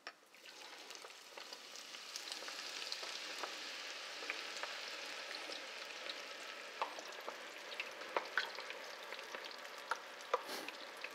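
Diced ginger, red onion and garlic dropped into hot oil in a copper saucepan and deep-frying: a steady sizzle that builds over the first couple of seconds and holds, with scattered sharp pops and crackles.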